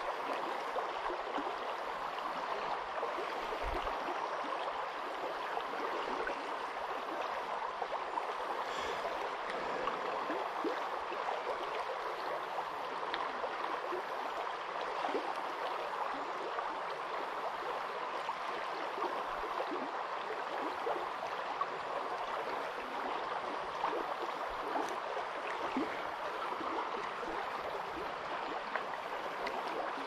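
Creek water running, a steady even rush.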